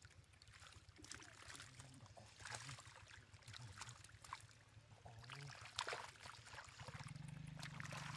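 Faint splashing and slapping of hands and fish in shallow muddy water, in irregular short bursts over a trickle of running water. A low hum comes up near the end.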